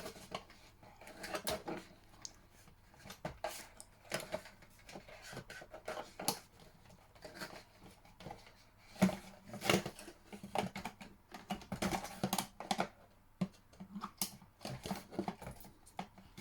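Irregular clicks, taps and knocks of small plastic parts being handled, as a toy remote control is worked at by hand; a few louder knocks come about nine seconds in.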